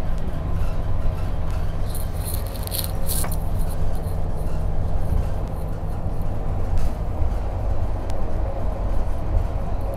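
Ride noise inside a Scania K310UB single-deck bus: a steady low engine and drivetrain hum with road rumble. A brief hiss and a sharp click come about two to three seconds in.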